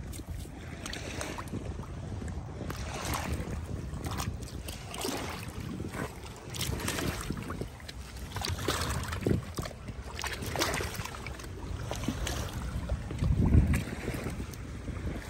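Wind noise on the microphone, with irregular splashing and sloshing as a borzoi wades through shallow water. There is a louder low burst of wind near the end.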